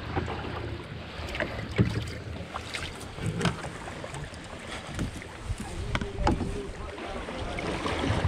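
A canoe on moving river water: splashing water and paddle strokes, with irregular knocks and thumps against the hull.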